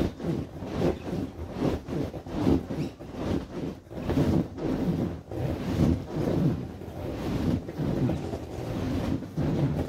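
Large vinyl inflatable ride-on wolf being bounced on: rhythmic rubbing and thudding of the air-filled vinyl, a little over two strokes a second.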